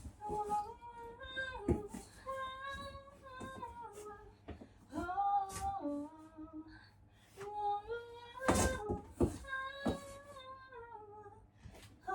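A woman singing and humming a pop melody unaccompanied in a small room, in held, gliding phrases without clear words. A few sharp knocks sound between phrases.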